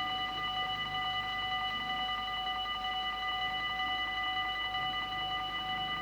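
Dutch level crossing warning bell ringing steadily and rapidly, a metallic ring with several high overtones, signalling that a train is approaching and the barriers are down or closing.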